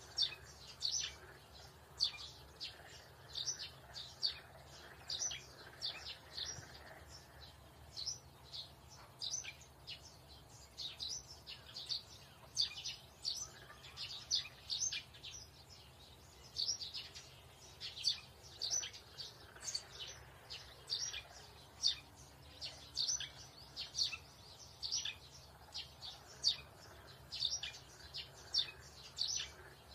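Small birds chirping: quick, high chirps repeated several times a second in irregular clusters.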